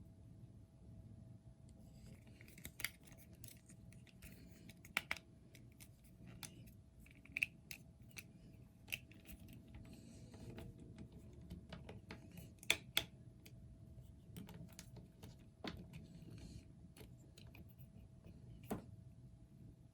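Scattered sharp plastic clicks and light rustling as a plastic action figure, its accessory parts and its packaging are handled, the loudest clicks about five, ten and thirteen seconds in.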